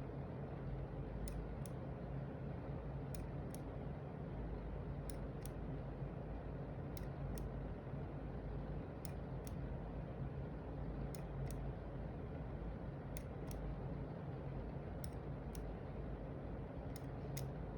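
Logitech G703 gaming mouse button being clicked, each press and release a pair of sharp clicks about a third of a second apart, repeated about every two seconds, nine times. The clicks are faint over a steady low hum.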